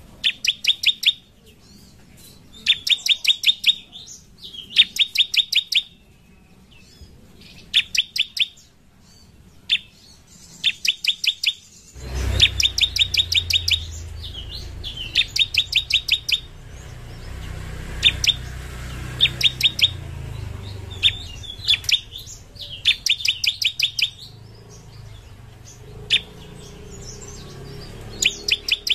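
Bar-winged prinia (ciblek) singing: repeated fast bursts of sharp, high notes, several to a burst, with short pauses between. From about twelve seconds in, a low rumble runs underneath.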